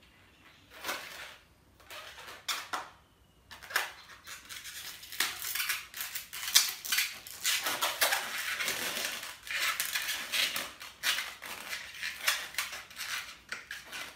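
Inflated white latex modelling balloon squeaking and rubbing under the fingers as it is twisted and pinched into a small round bulb. The squeaks are sparse for the first few seconds, then come in a dense, irregular run.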